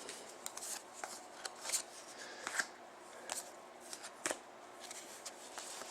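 Hockey trading cards handled and slid against one another, giving soft, scattered clicks and rustles.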